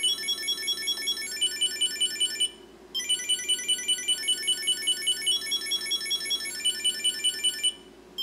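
Chipolo 2.5 Bluetooth tracker ringing its find alarm: a rapid tune of high-pitched beeps, about five a second, stepping up and down in pitch, with a short break partway through and another near the end. The alarm peaks at about 81 dB on a sound meter, well short of the loudness the maker claims.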